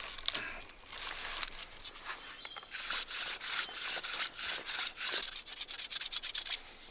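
A leather-wrapped piece of sandstone rubbed back and forth along a wooden bow stave, used as abrasive paper to smooth the wood: a run of rhythmic rasping strokes that begins about three seconds in. Before it there is softer, irregular scraping.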